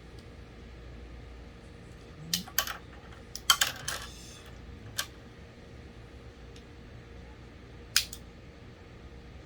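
Sharp clicks and light clatter of small hard parts being handled, a quick run of them about three and a half seconds in and single clicks near five and eight seconds, over a steady low hum.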